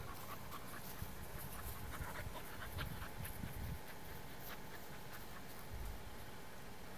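Airedale Terrier puppy panting faintly while it plays.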